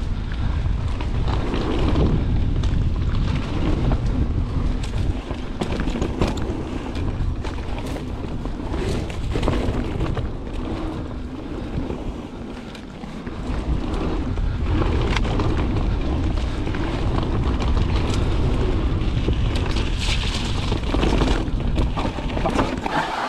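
Wind buffeting the microphone of a camera on a Santa Cruz mountain bike descending a dirt trail at speed, over the rumble of knobby tyres on dirt, with scattered clicks and knocks as the bike rattles over bumps and roots. The rumble eases briefly about halfway through, then picks up again.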